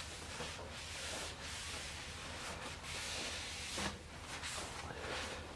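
Hand wiping foaming glass cleaner and oil off a cast iron table saw top, in a few long rubbing strokes with short pauses between them.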